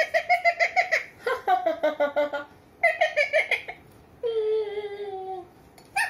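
Rose-ringed parakeet calling into a steel tumbler: three quick runs of rapid, giggle-like chattering notes, then one long call that falls slightly in pitch.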